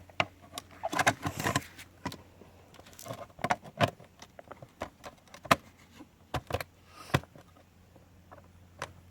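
Hard plastic clicks, knocks and clatter as the filter container of a Bridge Raptor robotic pool cleaner is handled and fitted back into the cleaner's housing.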